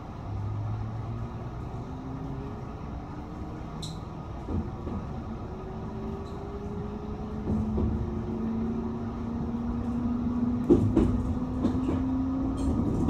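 Electric train accelerating away from a station, heard from the driver's cab: steady rumble with the traction motors' whine rising slowly in pitch as it gathers speed, and a few sharp clicks from the wheels on the track, loudest about eleven seconds in.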